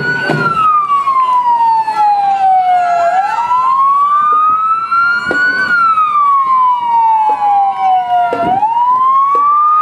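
Emergency-vehicle siren in a slow wail, its pitch sliding down for nearly three seconds and then back up, repeating about every five seconds. A few short knocks come through now and then.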